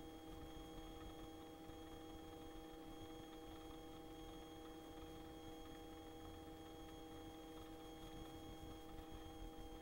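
Faint, steady electrical hum of several even tones on the Robinson R22 helicopter's intercom audio, with a low rumble beneath and no change throughout.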